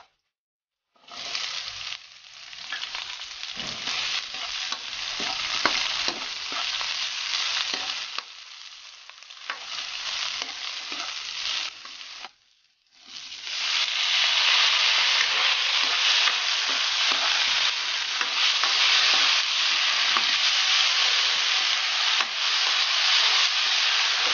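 Chopped garlic, onion and tomato sizzling in hot oil in an aluminium wok, stirred with a coconut-shell ladle that scrapes and taps the pan. The frying stops briefly twice, about a second in and near the middle, and is louder through the second half.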